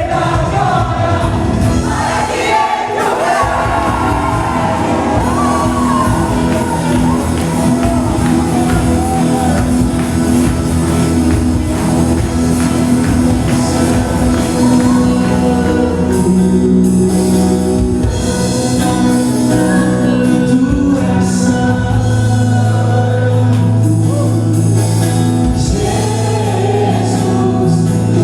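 Live Christian worship music: voices singing over long held instrumental chords and a sustained bass.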